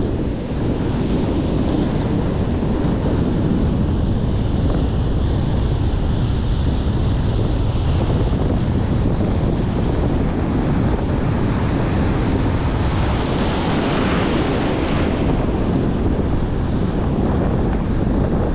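Strong wind buffeting the microphone over the steady rush of breaking ocean surf. A little past the middle the hiss of the surf swells up for a few seconds as a wave washes in.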